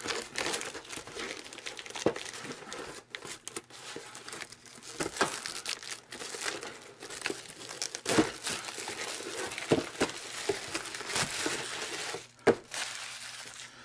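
Cellophane shrink-wrap being peeled and torn off a cardboard model-kit box, crinkling and crackling the whole time, then scrunched up in the hand, with one sharp crackle near the end.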